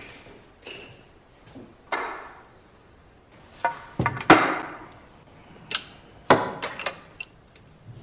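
Billiard balls clacking: a run of sharp knocks from cue strikes and ball-on-ball hits, the loudest a quick double knock about four seconds in.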